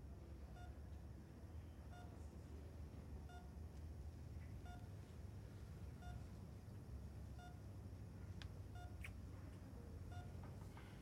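Bedside patient monitor beeping steadily with short single-pitched tones about once every second and a half, over a low steady hum of room tone.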